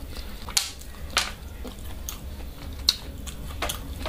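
A person chewing food close to the microphone, with about four sharp wet mouth smacks spread through the chewing.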